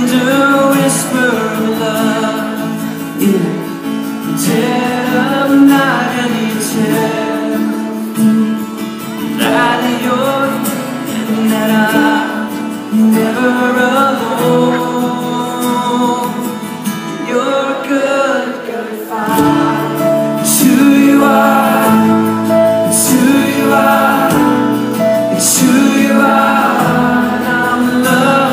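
Live concert music: a band performing a song, with singing over guitar accompaniment.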